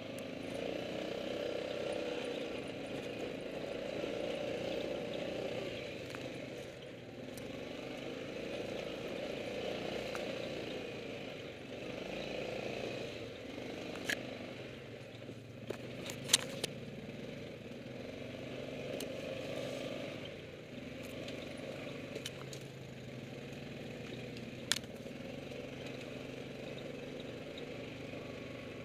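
ATV engine running at low trail speed, its sound swelling and easing every few seconds with the throttle. A few sharp clicks and knocks cut in around the middle, two close together, and one more later on.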